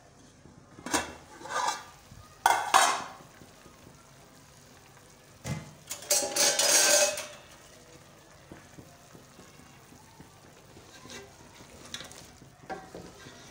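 Aluminium pot lid knocking and clattering as it is handled and lifted off, with a loud scrape for about a second midway. Chicken tikka pieces in yogurt marinade then simmer faintly over a low gas flame, with a wooden spoon knocking against the pot near the end.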